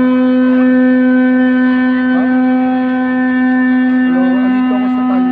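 A steady, unchanging droning tone held on one pitch, like a sustained wind-instrument drone, with faint voices under it.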